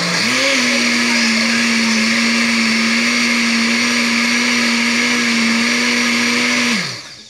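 Electric countertop blender running, blending a mango and milk shake: the motor comes up to speed at the start, holds a steady pitch, then is switched off and winds down quickly near the end.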